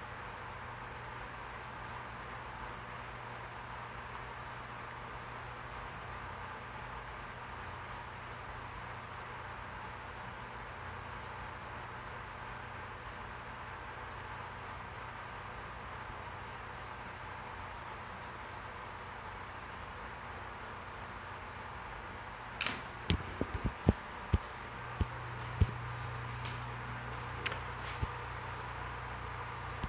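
High-pitched chirping that repeats evenly about three times a second, over a steady low hum from the aquarium air pumps. In the last several seconds a few sharp knocks and clicks sound and the hum gets louder.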